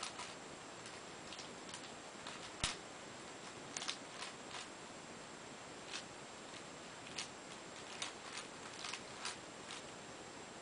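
Plastic Cube4You 3x3x7 cuboid puzzle clicking as its layers are turned by hand: irregular light clicks, some in quick runs, with one sharper clack about two and a half seconds in.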